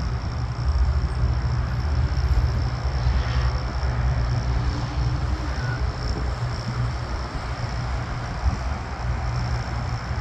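Business jet climbing away after takeoff, its engines a steady low rumble heard at a distance, with a thin steady high tone over it.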